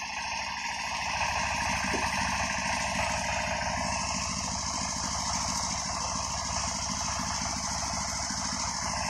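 An engine idling steadily, getting a little louder over the first second and then holding even.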